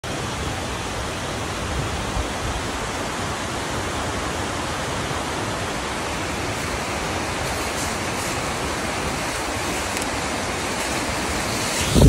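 Waterfall and creek water rushing, a steady, even wash of noise.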